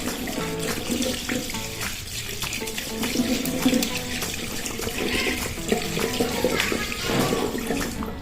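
Tap water running into a sink while hands are washed under it, with background music.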